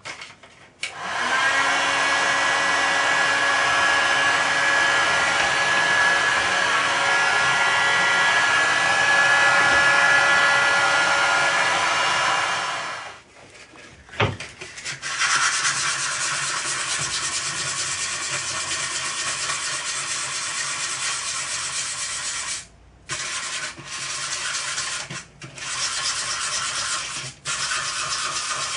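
A small electric power tool runs steadily for about twelve seconds and stops. Then a thin sheet-metal plate is rubbed by hand with abrasive paper in quick strokes, with a few short pauses, roughening the surface to give the paint a key.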